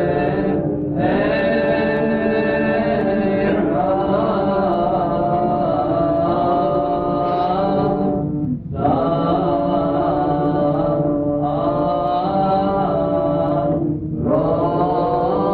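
Orthodox liturgical chant: voices singing long, held melodic phrases, with brief pauses between phrases about halfway through and again near the end.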